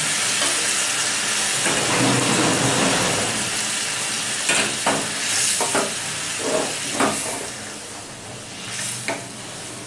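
Hot water ladled into a kadai of fried potato, onion and tomato masala, sizzling and hissing and slowly dying down, while a wooden spatula stirring it knocks and scrapes against the pan a few times in the middle.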